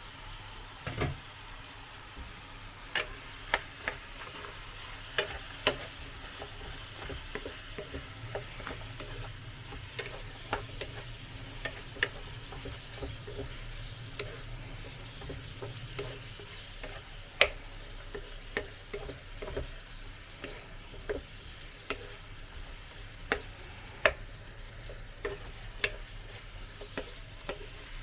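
Chicken sizzling in a covered pan as it is seared, a steady frying hiss with sharp, irregular pops and crackles every second or so.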